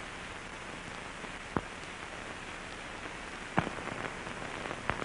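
Steady hiss and crackle of an old film soundtrack transfer, broken by a few sharp pops.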